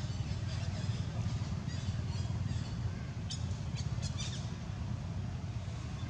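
Outdoor ambience: a steady low rumble, with a scatter of short, high chirps between about half a second and four and a half seconds in.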